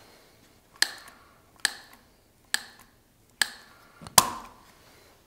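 Trigger of a two-part fixing-foam dispensing gun squeezed five times, a sharp click a little under once a second, each with a short fading tail; the last click is the loudest.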